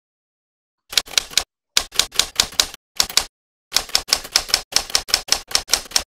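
Typewriter key strikes: rapid clacks in runs, starting about a second in, with brief pauses between the runs.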